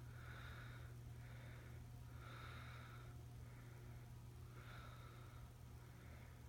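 Codep Ever Muster ceiling fan running at low speed on a solid-state variable speed control, giving a faint steady motor hum with soft swishes of air recurring about once a second. The hum is typical of a fan run on a solid-state control, and the fan is a little bit hummy.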